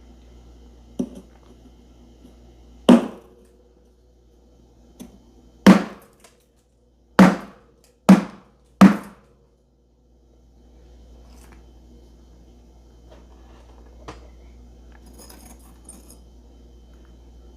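Thick humidifier-grown freezer frost being crunched: a series of sharp, loud crunches in the first nine seconds, then softer, irregular crackling.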